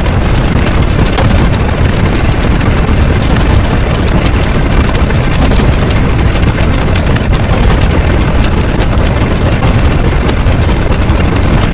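Loud, continuous noise with a heavy low rumble, cutting off abruptly at the end.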